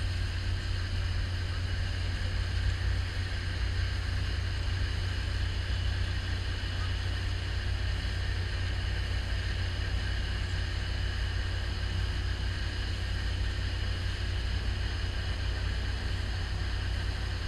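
Steady low rumble of a towboat's diesel engines as it pushes barges slowly into a lock chamber.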